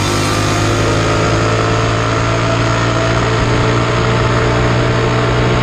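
Mini bike engine running steadily at cruising speed, its pitch held level, with a rush of wind over the bike.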